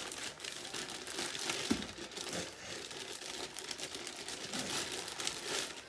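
Shopping bag crinkling and rustling without a break as hands rummage in it and pull out items.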